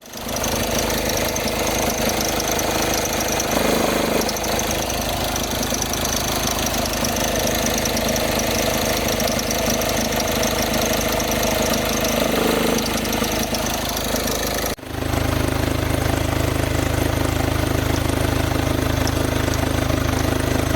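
Volkswagen Jetta engine running with a grinding, knocking noise from the accessory belt drive. The cause is a seized alternator overrunning pulley, which leaves the belt no give and makes it squeal, and a broken belt tensioner, which grinds. About three-quarters of the way through, the sound changes abruptly to a steadier, deeper hum.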